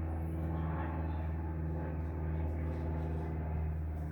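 Steady low mechanical hum holding one constant pitch.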